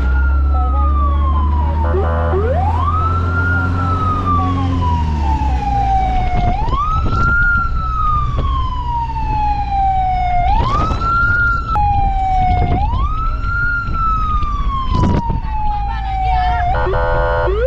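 Emergency vehicle siren wailing: each cycle rises quickly, falls slowly and repeats about every four seconds, five times in all. Under it is a steady low engine and road rumble, and a short buzzing horn blast sounds about two seconds in and again near the end.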